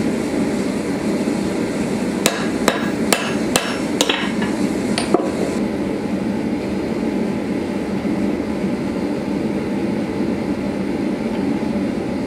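Hammer blows on a punch held in tongs, set in the slot of a red-hot sword cross-guard on the anvil: five strikes about two a second, then one more about a second later, each with a brief ring. A steady low rush runs underneath.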